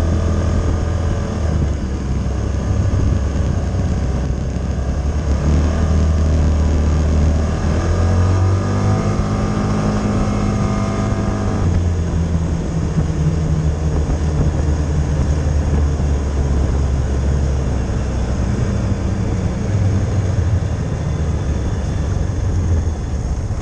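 Polaris side-by-side UTV engine running under way, heard from inside the cab. The engine note climbs steadily for about four seconds as it accelerates, then drops back suddenly about twelve seconds in.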